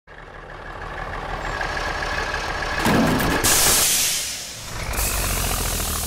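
Cartoon bulldozer engine sound effect running steadily and growing louder. Just before three seconds in there is a heavy thump, then a loud hiss of escaping steam, the sign of the engine overheating. The low engine hum carries on afterwards.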